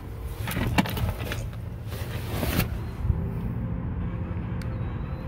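Handling rustle and a sharp click as the truck's ignition key is turned off, over a steady low hum.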